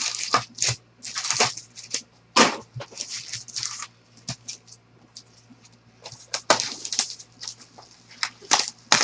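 Foil trading-card pack wrappers crinkling and tearing as packs are ripped open and the cards handled, in quick irregular bursts.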